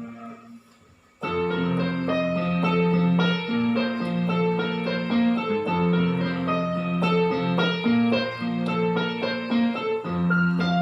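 Roland XPS-10 keyboard playing a ringtone tune in a piano sound. The last held notes of one phrase die away, and just over a second in a brisk melody starts over a repeating bass line.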